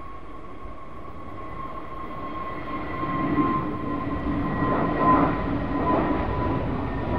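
Jet engines of an easyJet Airbus A320-family airliner at take-off thrust as it climbs out after lift-off: a steady high whine over a broad roar that grows louder about three seconds in.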